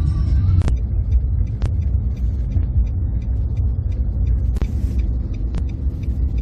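A loud, steady low rumble, with a few sharp clicks scattered through it.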